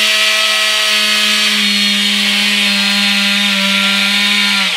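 Stihl petrol chainsaw held at full throttle while cutting through a log. Its engine note stays steady and high, then cuts off suddenly at the end.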